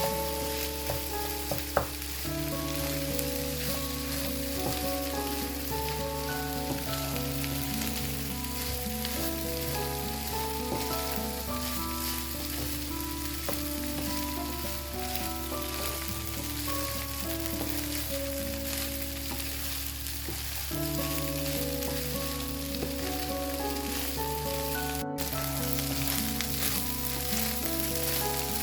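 Rice frying with chicken and vegetables in a pan, a steady sizzle as it is stirred, with a click about two seconds in.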